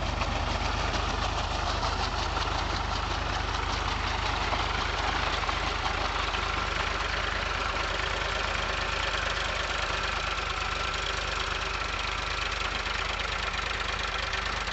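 Powertrac Euro 47 tractor's diesel engine running steadily while driving a rotary puddler through flooded paddy mud, with a steady whine coming in about halfway through.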